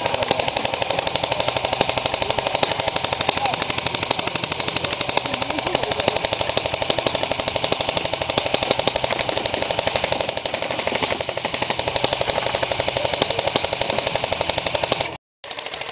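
Airsoft gun firing on full auto in one long, unbroken string of very fast shots, as in a rate-of-fire test. The firing cuts off briefly near the end, then starts again.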